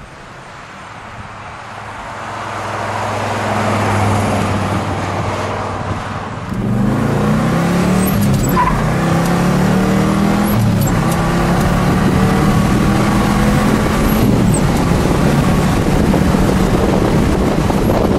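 1968 Oldsmobile Cutlass W-31's Ram Rod 350 V8 driven hard: it first swells as the car approaches and passes, then is heard from inside the car accelerating through the gears of its four-speed manual, the engine pitch climbing and falling back at two upshifts.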